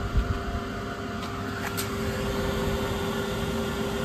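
Creality Falcon A1 laser engraver running a material test: a steady mechanical hum with a few faint steady tones from its fan and moving laser head. A low bump just after the start.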